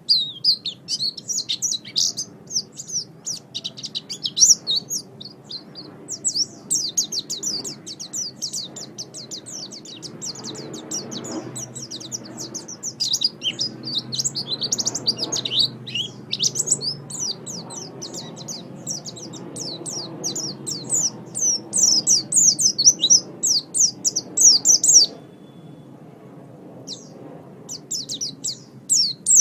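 White-eye (pleci) singing a fast, continuous twittering song of high, quick chirps and trills, breaking off for a moment near the end before resuming.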